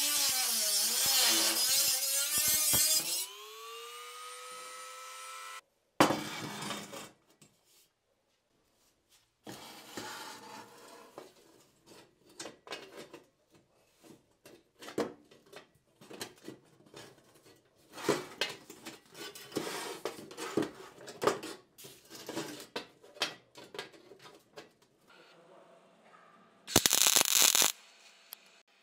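Handheld rotary tool with a cut-off disc grinding into the rusted steel of a helmet, its whine wavering under load. About three seconds in, the disc comes off the metal and the tool spins up to a steady higher whine, then stops. After that come scattered knocks and scrapes of the steel helmet being handled on a wooden table, and near the end a short burst of loud hiss.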